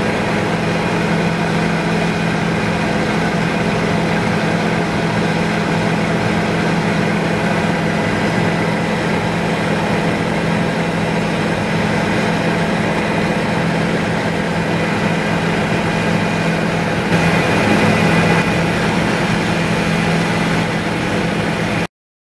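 Helicopter in flight heard from inside the cabin: a steady drone of engine and rotors with a strong low hum. It swells briefly about 17 seconds in, then cuts off abruptly near the end.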